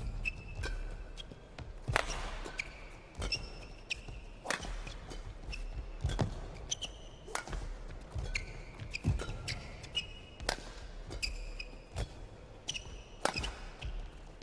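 Badminton rally: sharp racket strikes on the shuttlecock about once a second, with short high squeaks of shoes on the court between the shots.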